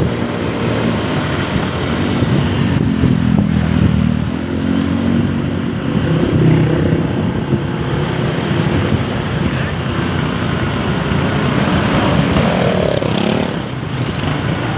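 Road vehicle engines running amid traffic noise. A pitched engine note stands out from about two to five seconds in.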